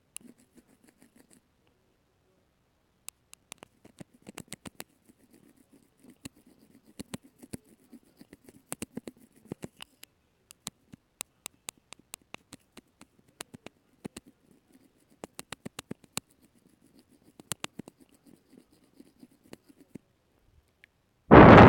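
Close-miked ASMR trigger sounds: scattered soft taps, clicks and scratches of small objects handled right at the microphone, over a faint rustle. A brief loud bump or rub hits the microphone near the end.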